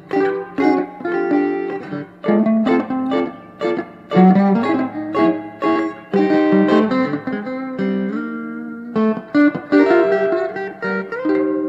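Two Fender Telecaster electric guitar rhythm parts playing together through an amplifier, one on both pickups and one on the bridge pickup, picking a busy run of single notes and chords.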